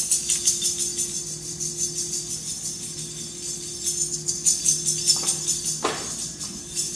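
Jingling hand percussion shaken in a steady rhythm, about four strokes a second, over a low steady hum, with a brief falling sweep about six seconds in.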